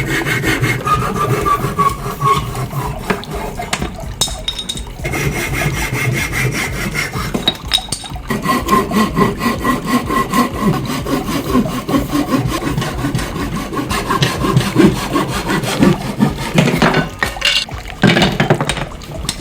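A saw cutting through wood in rapid repeated strokes, stopping briefly a few times.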